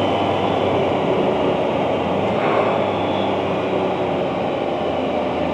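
Can-Am Spyder three-wheeled motorcycle engine pulling steadily up a hill, with steady road and wind noise.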